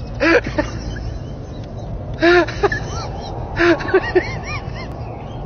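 A child's high voice making several short sounds with a rising-and-falling pitch, over a steady low background rumble.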